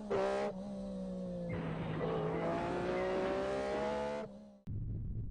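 Car engine revving, its pitch sliding up and down, cutting off abruptly about four and a half seconds in and leaving a low steady hum.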